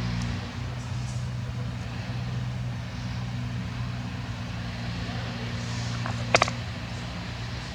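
A motor running steadily with a low, even hum, like an idling vehicle engine. A sharp double click is heard about six seconds in.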